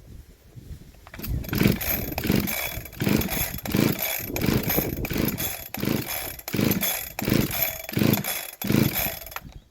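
Husqvarna 372XP-clone two-stroke chainsaw on choke starting about a second in and running unevenly, its sound rising and falling about every two-thirds of a second, then cutting out suddenly near the end. The saw has a freshly fitted carburettor that has not yet been tuned.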